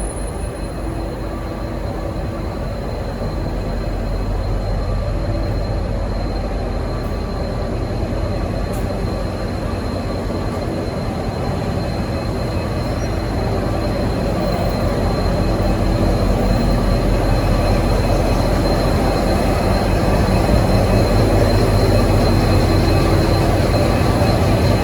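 V/Line N class diesel-electric locomotive running, a steady low engine drone that grows slowly louder, with a thin steady high whine throughout.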